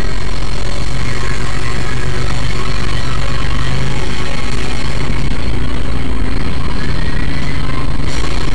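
Engine of an off-road 4x4 running steadily at low speed as it crawls over a rough trail, heard loud and constant from inside the vehicle, with a faint whine rising in pitch about six seconds in.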